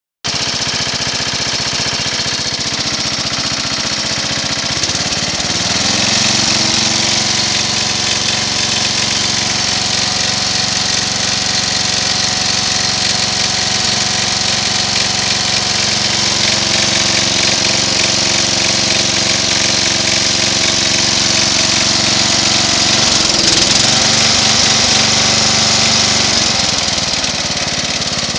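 Lawn-Boy riding tractor's 12 hp Briggs & Stratton engine running. About five seconds in it speeds up and holds a steady higher speed, then wavers and drops back to a lower speed near the end.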